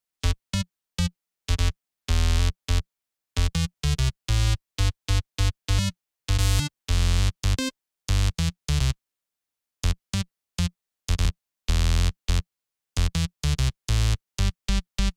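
Serum software-synth bass patch playing a choppy pattern of short, pitched notes with a heavy low end, each cut off abruptly into dead silence. Some notes are much brighter than others.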